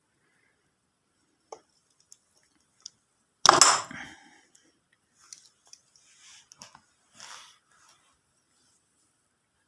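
Hand tools working on motorcycle wiring: a few light clicks, then one short crunching snip about three and a half seconds in, followed by softer scraping and rustling as the wires are handled.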